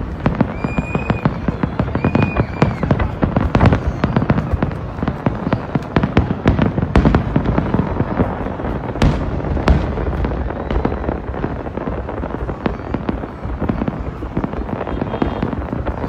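Fireworks display: a rapid, continuous barrage of bursts and crackling shells with deep booms underneath.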